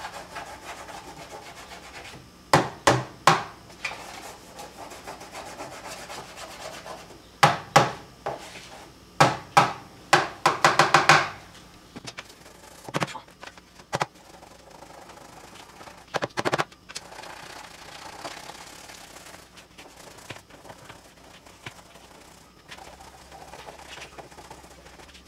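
Hand scrubbing and rubbing along the rim of a top-load washer's inner tub, loosening dried lint and dust. There are runs of quick, louder strokes in the first half, with a dense flurry about ten seconds in, and scattered single strokes after that.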